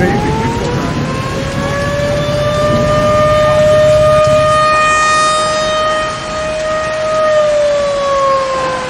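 Outdoor tornado warning siren winding up to a loud, steady wail, holding, then beginning to wind down near the end, over rain and storm noise that fades away about halfway through.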